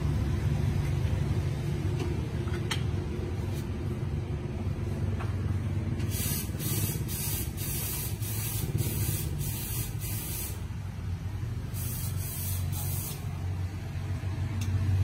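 A steady low rumble with two stretches of pulsing hiss like a spray. The first hiss starts about six seconds in and lasts some four seconds; a shorter one follows about twelve seconds in.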